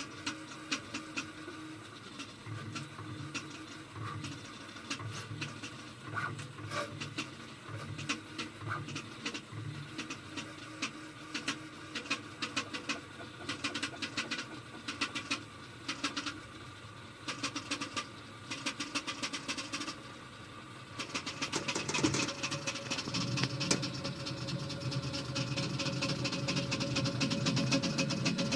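Prusa MK3 3D printer running, its motors humming with rapid irregular clicking, a noise the owner treats as a fault. About three quarters of the way through it becomes louder and steadier.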